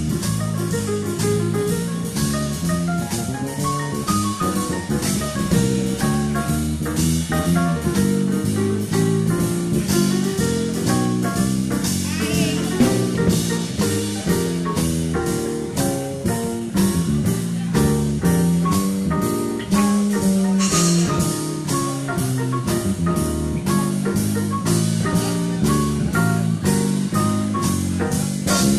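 Big band playing swing jazz live, with drum kit keeping a steady beat of about two strokes a second under bass and horn lines.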